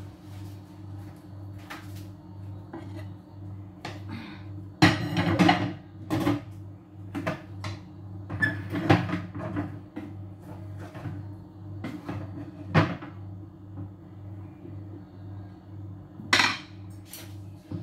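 Kitchen clatter: irregular knocks and clinks of dishes, pans and cupboard doors being handled, loudest about five seconds in and again near the end, over a steady low hum.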